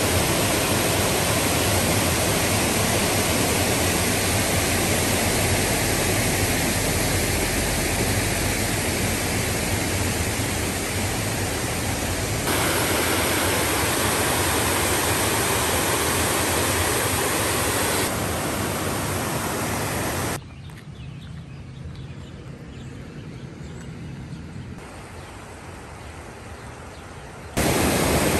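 Water pouring over a low weir and churning below it: a steady, even rush. It drops suddenly to a quieter rush for several seconds about two-thirds of the way through, then comes back up just as suddenly.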